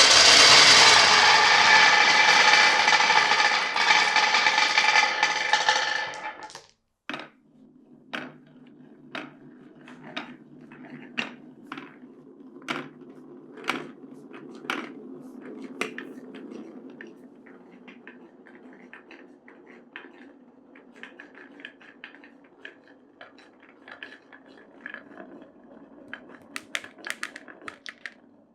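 Marbles on a wooden marble run: a dense rattling rush of many balls for about six and a half seconds that cuts off suddenly, then marbles rolling along the wooden track with scattered clacks and knocks, which bunch into quick clusters near the end.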